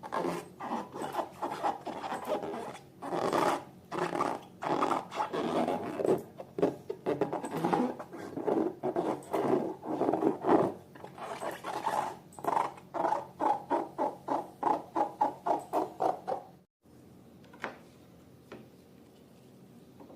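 Slime being squeezed and kneaded by hand, a run of wet squishes and rubs. About twelve seconds in they speed up to roughly three squishes a second, then stop abruptly, leaving a quiet stretch with a couple of faint clicks.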